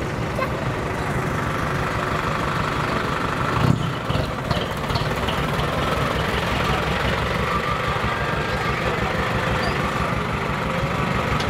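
Truck diesel engine idling with a steady low rumble, joined by a brief loud thump about four seconds in.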